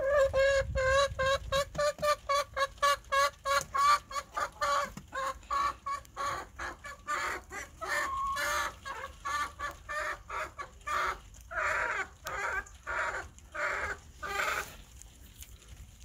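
A domestic hen clucking: a fast run of short clucks, about four or five a second, that slows into longer, spaced-out calls about halfway through and stops shortly before the end.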